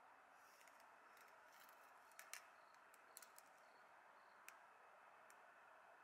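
Near silence: a faint steady hiss of room tone, broken by a few short, soft clicks about two, three and four and a half seconds in.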